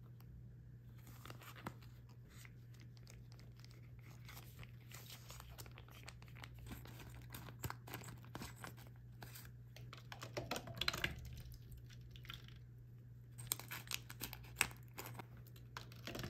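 Plastic food pouches crinkling as they are handled and snipped open with scissors, with a scatter of sharp clicks, densest about ten seconds in and again near the end. A steady low hum runs underneath.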